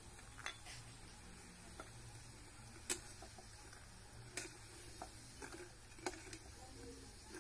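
Metal spatula clinking against a metal wok and a plate as fried pieces are lifted out: a few light, scattered clinks, the sharpest about three seconds in.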